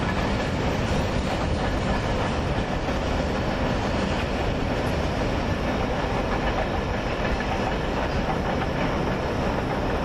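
Freight train rolling past at a grade crossing, a steady rumble of wheels on rail.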